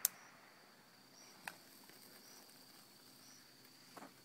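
Night insects trilling steadily, with a higher short chirp repeating about once a second. A single sharp crack comes right at the start, and faint pops follow about a second and a half and four seconds in.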